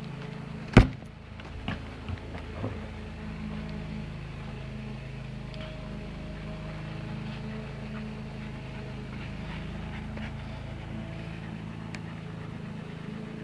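Steady low mechanical hum of a running motor, even in pitch throughout, with one sharp knock about a second in and a few faint taps soon after.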